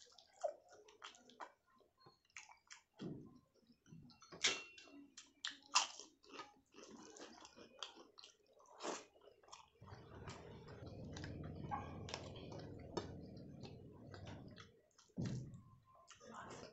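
Close-miked chewing and biting of food, with wet mouth sounds and many small clicks, and two loud sharp crunches about four and a half and six seconds in. From about ten to fifteen seconds in the chewing turns denser and steadier.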